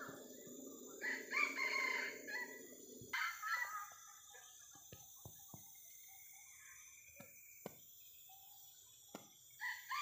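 Wild junglefowl rooster crowing in the forest canopy: a crow about a second in, another about three seconds in, and more crowing near the end. Between the crows, scattered sharp clicks and snaps.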